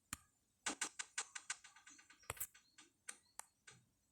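Faint, irregular light clicks and taps, about a dozen over a few seconds, most of them in the first half.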